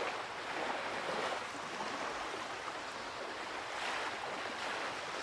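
Surf washing onto a sandy beach: a steady rush of waves that swells a little about a second in and again near the end.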